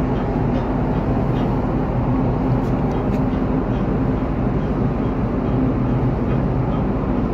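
Boat engine running steadily, a constant low hum.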